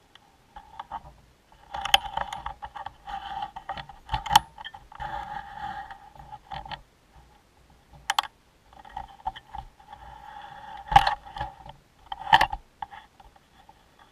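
Close scraping and rubbing against the camera in uneven bursts, with four sharp knocks, the loudest about eleven seconds in.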